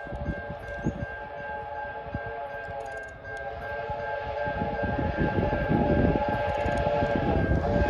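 An approaching train sounds one long multi-note whistle. A low rumble grows louder under it from about three seconds in.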